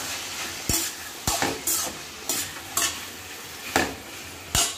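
Tomatoes, chillies, mint and cashews sizzling in hot oil and ghee in a kadai while a spatula stirs them, scraping across the pan in repeated strokes.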